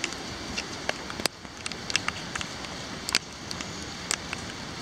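Steady rain falling, with sharp, irregular ticks of individual raindrops landing close by.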